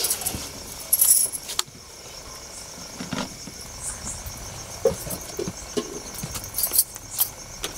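Crickets chirping in a steady high pulsing trill, with a brief metallic jingle and rustle about a second in and a few soft shuffling sounds.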